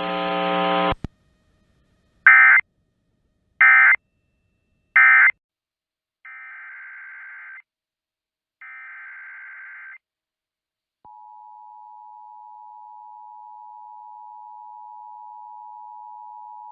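Emergency Alert System tones on NOAA Weather Radio. A short buzzy tone is followed by three short digital data bursts, the end-of-message code closing the watch. Two longer, quieter data bursts follow, and about 11 seconds in the steady two-tone attention signal begins, which announces a new warning.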